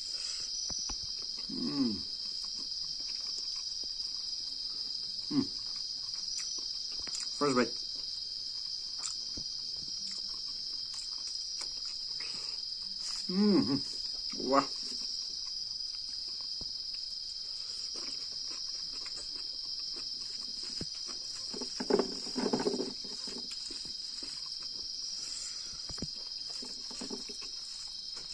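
Steady high-pitched trilling of night insects, with a handful of short low voice sounds, brief hums or murmurs from the man eating, scattered through it.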